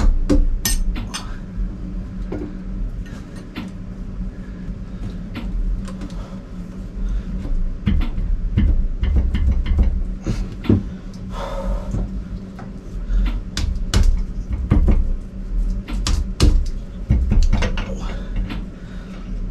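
Scattered metal clicks and knocks from hand work on a Ford Lehman diesel's stripped block as a piston is worked up and out of its cylinder, over a steady low hum.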